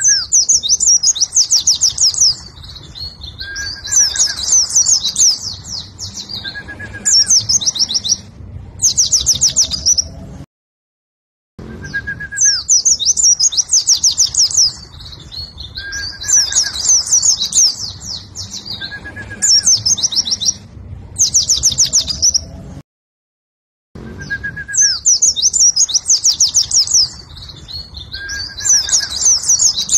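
Oriental white-eye (pleci) singing loud, rapid, high trilling phrases in the fast rattling 'ngentrok' style, with short thin whistles between them. The same stretch of song repeats about every twelve seconds, broken by a second of silence about ten and twenty-three seconds in.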